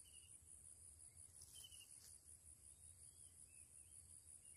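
Faint outdoor quiet: a steady, high-pitched insect trill with a regular pulse, a few short high chirps over it, and a low rumble underneath.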